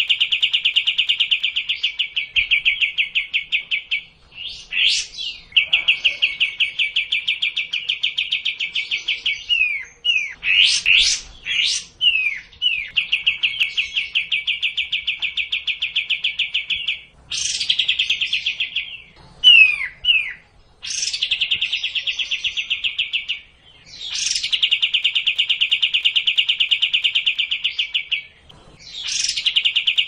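Kapas tembak bulbul singing: long runs of fast, evenly repeated chattering notes lasting several seconds each, broken by short sharp whistles that sweep up and down. It is a lure song meant to get another kapas tembak to call.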